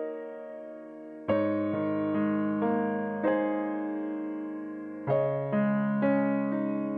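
Background music: a slow, gentle piano piece, with single notes and chords struck every half second or so, each dying away before the next.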